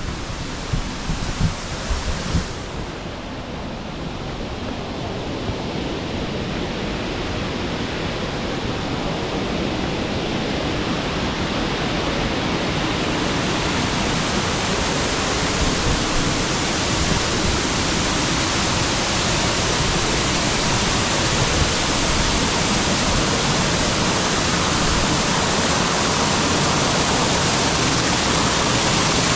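Waterfall pouring down onto rock, a steady rush of water that grows gradually louder as it gets closer. A few low bumps in the first two seconds or so.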